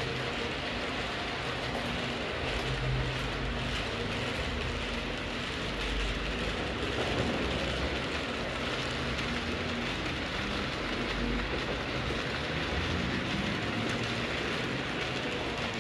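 H0-scale model train running along the layout's track: a steady rolling noise of metal wheels on the rails, with a low hum that comes and goes.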